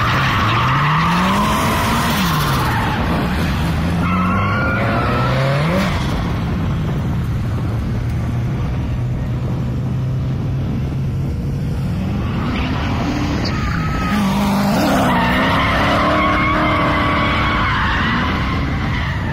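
Drift car's engine revving up and down hard as it slides around the curve, with tyres squealing near the start, again about four to six seconds in, and through much of the second half.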